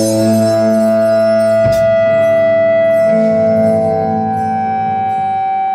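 Amplified electric guitars holding sustained notes that ring out steadily, with a single click about two seconds in and the notes changing about three seconds in.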